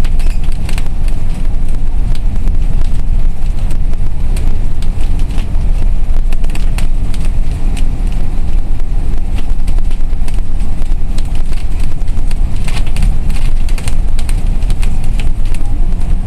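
Cabin noise of a moving bus heard from inside: a loud, steady low rumble of engine and road noise, with frequent small clicks and rattles throughout.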